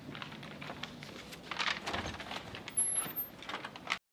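Room noise with scattered rustles and light knocks, cut off abruptly to silence near the end.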